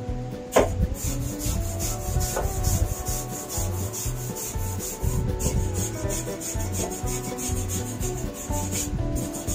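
A stiff wooden-handled hand brush scrubbing the bare sheet-metal cowl and firewall of a stripped car body in quick back-and-forth strokes. There is one brief squeak about half a second in.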